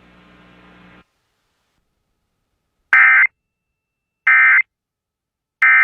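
Three short, loud bursts of Emergency Alert System SAME digital data tones, each about a third of a second long and evenly spaced about a second apart. This is the end-of-message code that closes an EAS alert.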